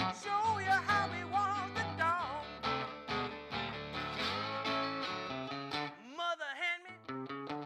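Acoustic guitar played with a slide in a blues instrumental break: wavering, gliding melody notes over a steady thumbed bass, with rising slides near the end.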